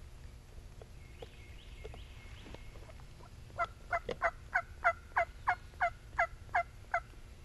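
A run of about eleven wild-turkey yelps in a steady rhythm, about three a second, each note short and dropping in pitch, starting about three and a half seconds in.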